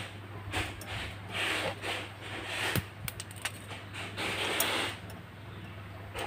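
Handling noise from fitting a small bolt into the hole of a square steel tube: scraping and rubbing in short bursts with a few small sharp clicks, over a steady low hum.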